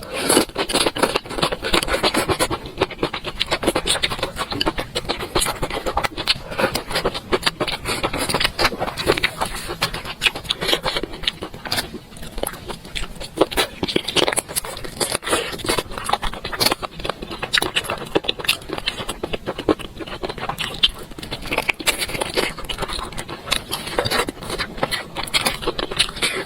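A person eating close to the microphone: a dense, irregular run of short clicks and chewing noises, with a utensil scraping against a bowl.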